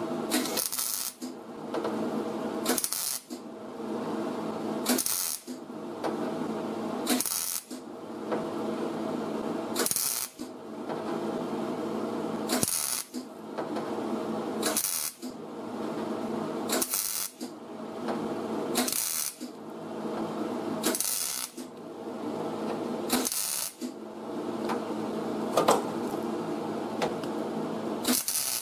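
MIG welder stitch welding thin auto body sheet steel overhead: the arc crackles in repeated short runs of about two seconds each, every run broken by a brief sharper burst as the trigger is released and pulled again.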